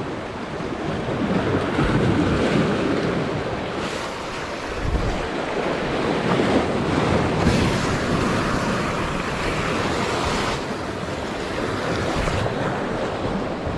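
Sea surf washing in, with wind buffeting the microphone: an even rushing that swells and eases.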